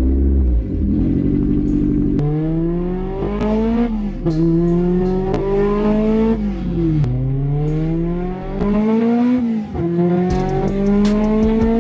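Honda B16 DOHC VTEC four-cylinder of a 1999 Civic SiR heard from inside the car: it starts up and settles, then revs under acceleration, its pitch climbing in four long pulls with drops in between as the car is driven through the gears.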